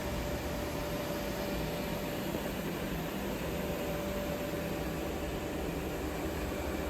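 Steady machinery hum and hiss with a faint constant tone, unchanging throughout.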